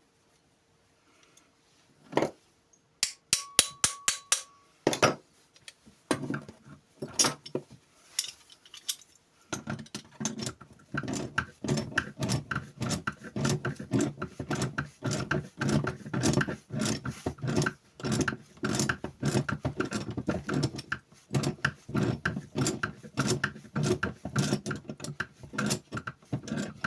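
Metal clinks, then quick repeated ratchet clicking, several a second from about ten seconds in, as the part is screwed down tight on the INTU-20 steel-strap tensioner with its newly fitted ratchet.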